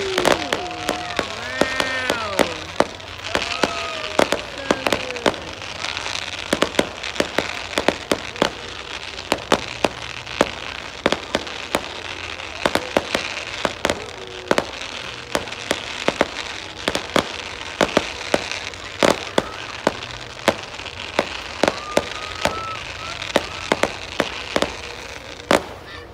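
Fireworks display: aerial shells bursting in a fast, irregular string of sharp bangs, with a steady crackling hiss between them.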